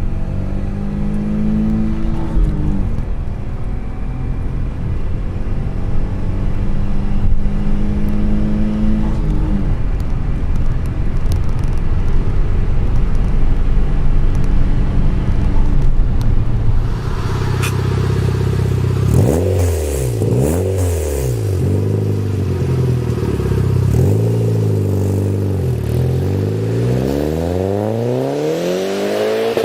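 Opel Calibra petrol engine accelerating hard, its pitch climbing through the gears with shifts about three and nine seconds in. About seventeen seconds in, a different recording takes over: the engine is revved up and down several times in quick succession, then pulls up steadily again near the end.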